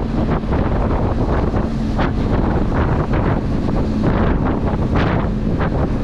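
Wind buffeting the microphone while a Benelli TRK 502X twin-cylinder motorcycle is ridden at speed, with the engine's steady drone underneath.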